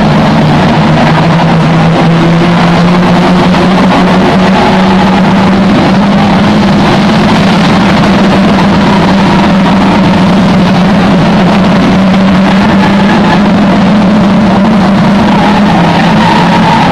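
Several saloon stock car engines running continuously as the cars race around the oval. The low engine note steps up and down every few seconds over a steady, loud roar of the pack.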